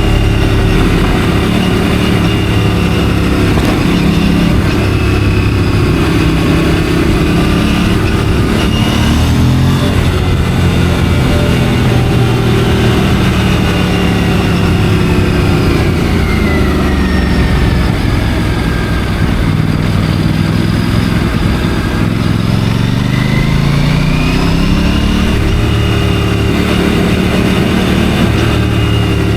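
Stock Aprilia RS 457's parallel-twin engine running while riding. The pitch falls off partway through, stays low for a while, then rises again as it picks up revs.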